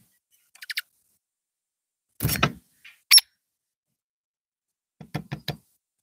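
Scattered short knocks and taps as birds land on and peck at the metal and plastic bird feeders. There is one sharp, high chirp just after three seconds, and a quick run of about five taps near the end.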